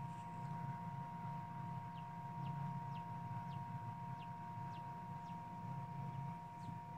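Newly hatched chick peeping: a run of short, falling peeps about two a second, starting about two seconds in, with a couple more near the end. Underneath, the incubator's fan hums steadily.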